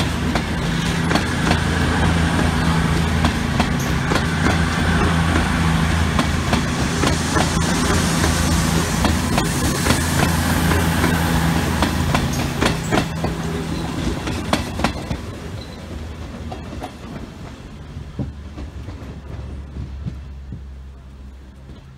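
Avanti West Coast Class 390 Pendolino electric train running past, with a steady low electrical hum and wheels clicking over the rail joints. The sound fades from about fifteen seconds in as the train moves away.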